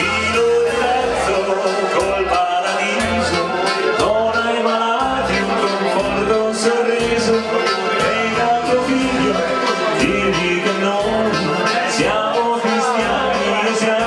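Live dance music from a small band with a keyboard, played through a PA loudspeaker, with a steady bass beat.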